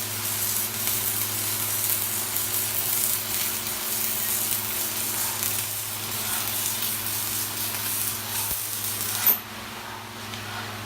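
Stick (shielded metal arc) welding: the arc crackles and hisses steadily, then breaks off about nine seconds in with a sharp pop. A steady low hum runs underneath.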